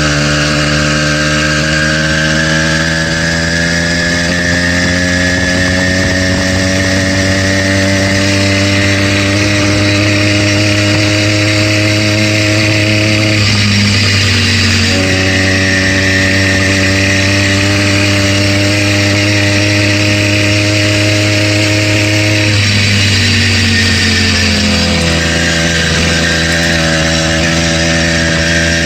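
Stock 80cc two-stroke bicycle kit engine running under way, its pitch rising slowly as it gathers speed, dipping briefly about halfway through and stepping down again a few seconds before the end. The owner says this brand-new engine knocks, which he takes for rod knock.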